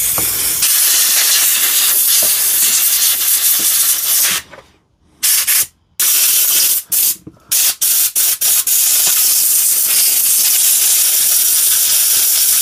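Aerosol cleaner sprayed onto a power-tool motor in a long hiss, then a compressed-air blow gun blowing the motor and trigger switch clean. The air comes first in several short bursts, then in a long steady blast through the second half.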